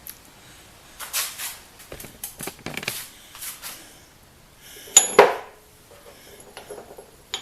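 Pieces of steel scrap being handled: a few light clinks and scrapes, then a louder metal clank about five seconds in that rings briefly.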